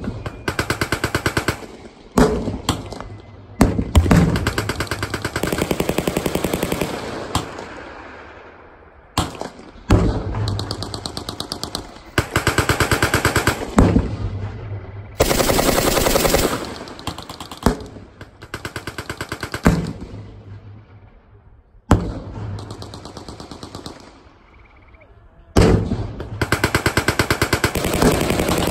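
Machine guns firing live rounds over a night infiltration course, in repeated bursts of rapid, evenly spaced shots lasting one to four seconds each, with short pauses between them. Each burst trails off in a long rolling echo across the range.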